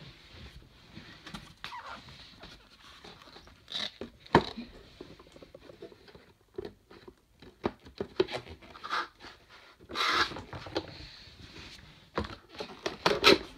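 Handling noise from a folding green-screen stand being unfolded and set on a tabletop: scattered taps, scrapes and short rustles, with a few louder ones about four seconds in, around ten seconds and near the end.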